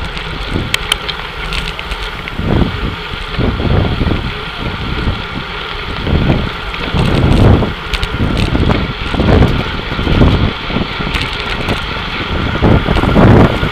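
Wind buffeting an action camera's microphone on a bicycle riding in a road-race peloton, in irregular low rumbling gusts over a steady rush of air and tyre noise.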